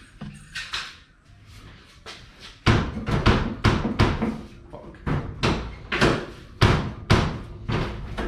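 A run of heavy knocks or bangs, about two a second, starting a few seconds in after a few lighter knocks.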